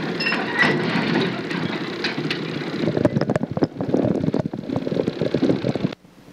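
A motor running with a rapid, irregular clatter, growing stronger about three seconds in.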